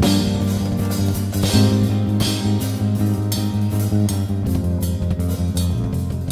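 Instrumental jazz-fusion band playing: nylon-string acoustic guitar, electric keyboard and electric bass over drums keeping a steady beat.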